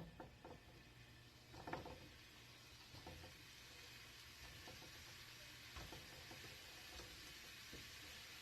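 Raw ground-beef meatballs going one by one into a hot non-stick sauté pan: faint sizzling with a few soft knocks as each ball is set down.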